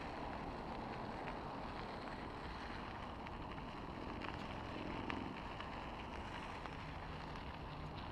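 Steady rushing of wind on the camera microphone while a mountain bike rolls along a dirt path, its tyres crunching on the dirt, with a few small ticks.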